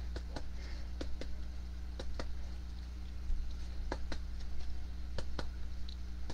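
Scattered light clicks, many in close pairs, over a steady low hum.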